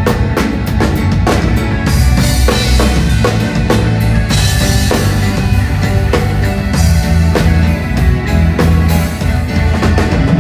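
Live band playing an instrumental passage at a sound check: drum kit with bass drum, snare and cymbals keeping a steady beat over a held bass line.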